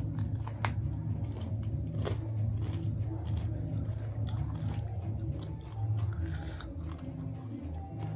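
Close-miked chewing of a mouthful of food, with wet mouth sounds and scattered sharp crunches and clicks.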